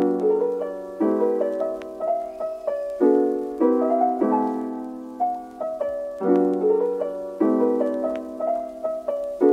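Background music: soft piano chords struck roughly once a second, with a simple melody above them.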